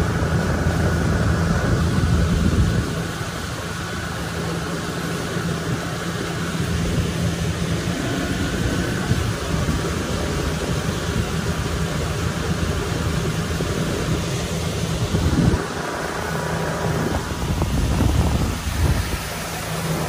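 Small boat's motor running steadily under way, with a constant rushing hiss over its low hum.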